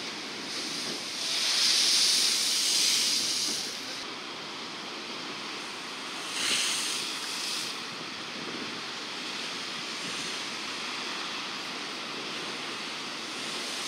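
Rough sea surf crashing against a concrete seawall, with a steady hiss of breaking water. A loud surge of breaking waves comes about one to four seconds in, and another short crash of spray about six and a half seconds in.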